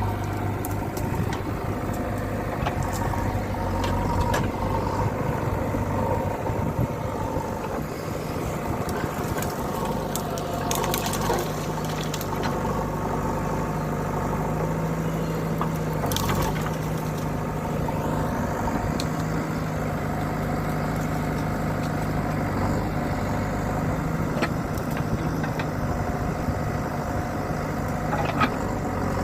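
Diesel engine of a JCB 3DX backhoe loader running steadily under working load, its pitch rising a little around the middle, with scattered crunches and knocks as the bucket digs and loads soil.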